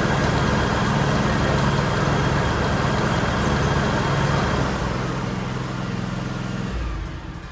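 John Deere X Series lawn tractor engine running steadily, dropping in level about five seconds in and stopping near the end.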